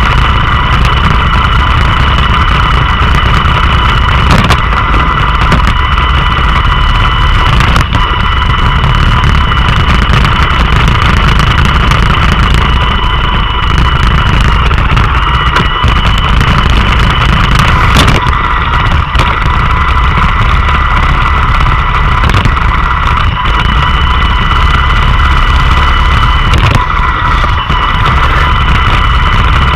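Roomba robot vacuum running up close, its fan and brush motors giving a steady, loud whine over a low rumble, with a few sharp knocks about 4, 8 and 18 seconds in.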